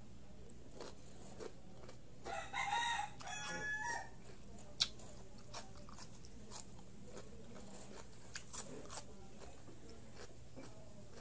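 A rooster crows once, a call of about two seconds starting about two seconds in, over the crisp crunching of raw cucumber being chewed. Scattered sharp crunches run through the rest.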